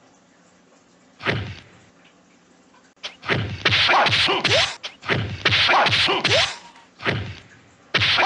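Dubbed kung-fu film fight sound effects: one punch hit a little over a second in, then a rapid flurry of loud punch and whoosh hits from about three seconds in, with two more single hits near the end.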